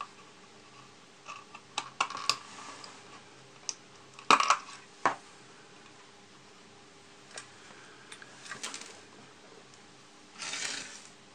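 Hard plastic model-kit parts being handled and worked with a hobby knife: scattered small clicks and taps, the loudest cluster about four seconds in, and a brief scraping rustle near the end.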